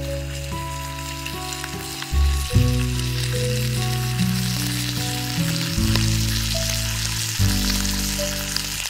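Bacon sizzling in a frying pan over a campfire, a steady frying hiss, under background music of held notes and a bass line.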